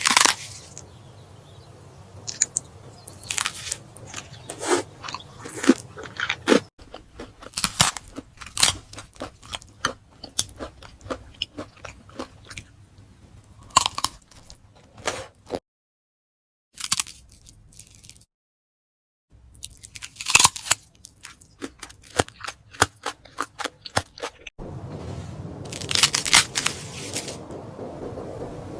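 Close-miked eating sounds: biting and chewing food, with frequent sharp crunches and mouth clicks. The background changes abruptly several times where short clips are cut together, with a couple of brief silent gaps in the middle.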